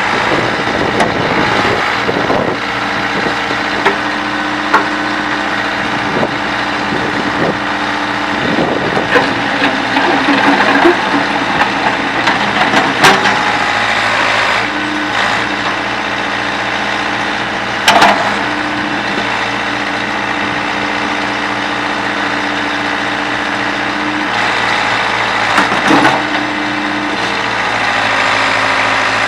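Case 580D backhoe engine running steadily, with several sharp knocks over it, a cluster of them near the middle.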